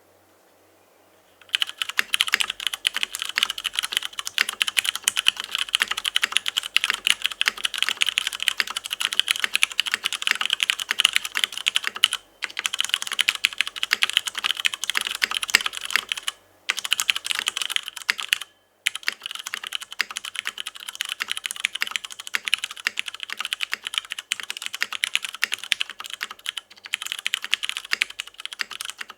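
Fast continuous typing on a mechanical keyboard with stock Cherry MX Hyperglide Brown tactile switches in an aluminium top-mount plate and PBT keycaps, a dense run of clacking keystrokes. It starts about a second and a half in, with a few brief pauses along the way.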